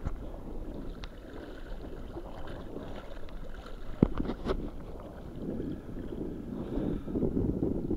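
Sea water sloshing and lapping in the shallows close to the microphone, with a sharp click about four seconds in.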